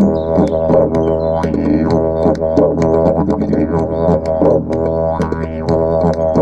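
Instrumental music: a steady low drone with rich overtones that swell and shift in a rhythmic pulse, with sharp light clicks on top.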